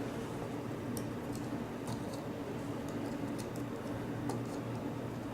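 Faint, irregular small metal ticks and clicks of a tool working at the retaining clip on the back of an Ace A527 padlock's core, over a steady low hum.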